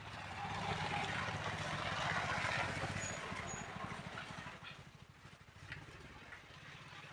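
A motor vehicle's engine passing by, growing louder and then fading away over about five seconds.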